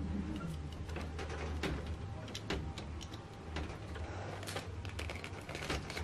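Close-up handling of plastic stationery: a small plastic correction-tape dispenser being turned and tapped in the fingers, then a clear plastic pack of correction tapes picked up, giving scattered small clicks, taps and crinkly rustles over a low steady hum.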